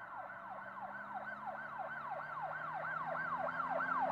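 Police siren in its fast yelp mode, the pitch sweeping up and down about three times a second and growing louder.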